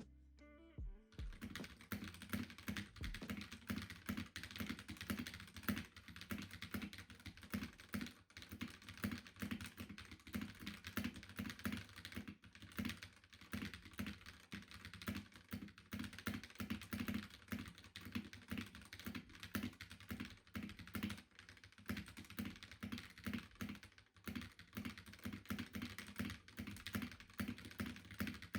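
Mechanical keyboard fitted with Akko CS Rose Red linear switches being typed on at a quick, steady pace, a dense run of keystrokes with a bit of a low thunk to each. The typing starts about a second in.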